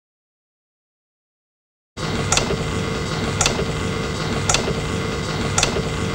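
A steady mechanical hum starts abruptly after about two seconds of silence, with a sharp click roughly once a second.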